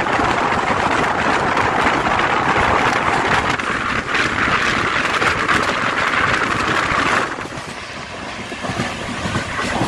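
Express train running at speed: a steady loud rush of wheels on rail and passing air, with fine rattling crackle, dropping noticeably in level about seven seconds in.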